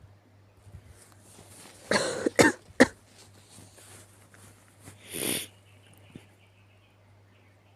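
Three sharp coughs in quick succession about two seconds in, then a softer, breathy burst about five seconds in, typical of a sick cough.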